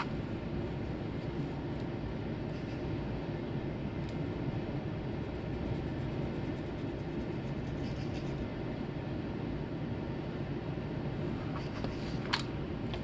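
Steady low rumbling background noise, with a sharp click at the very start and another near the end.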